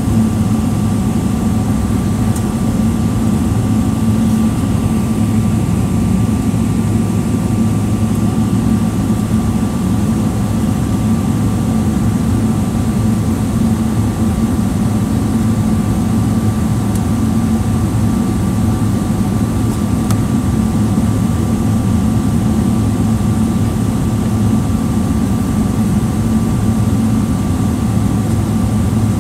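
Steady cabin hum inside a Boeing 777-300ER on the ground, its GE90 engines at idle, with a couple of faint steady whines over a deep drone. The sound does not build, so this is idle thrust while taxiing or holding, not the takeoff roll.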